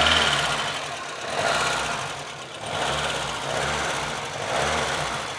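VAZ-2114 petrol engine running with a knock, revved in short blips several times and dropping back to idle; the owner does not know what is knocking.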